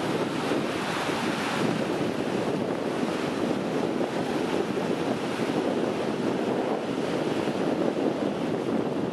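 Wind blowing across the microphone over choppy sea surf, a steady unbroken rush of noise.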